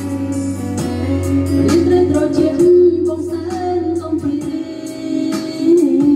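A man singing through a Monster MS-006 wireless microphone and amplified shop speakers, over a backing music track with a beat.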